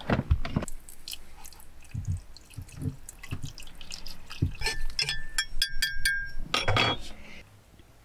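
Hot water poured from a stainless steel kettle into a ceramic mug, among scattered handling knocks. A quick run of short ringing clinks comes about five to six seconds in.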